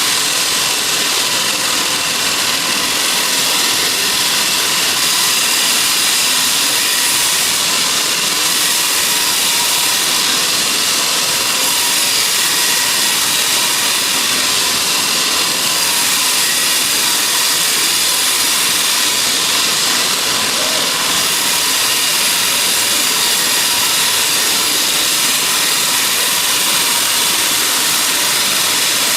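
Sawmill saw running steadily: a loud, even high-pitched hiss with a steady whine in it, unbroken throughout.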